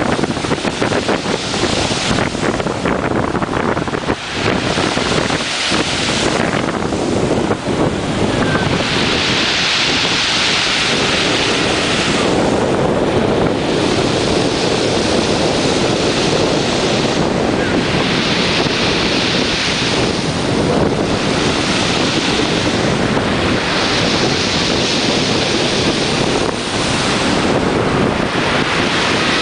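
Strong wind buffeting the microphone with a heavy rumble, over sea surf. Waves break and wash in with a hiss that swells every four to five seconds.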